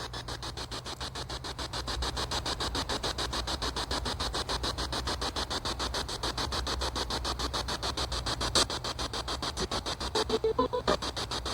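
Spirit box sweeping through radio stations: steady static chopped many times a second, with a brief snatch of a voice near the end.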